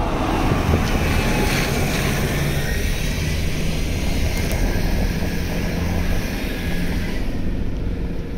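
Steady engine and road noise of a moving Toyota, heard from inside the cabin, with some wind noise. It is hissier in the first couple of seconds and duller from about three seconds in.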